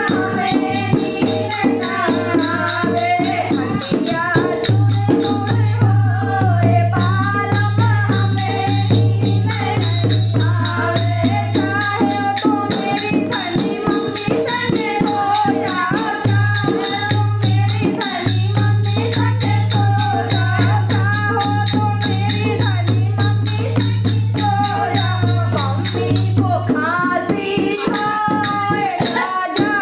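A Hindi song sung with a rattling percussion accompaniment over a steady low drone; the melody runs continuously.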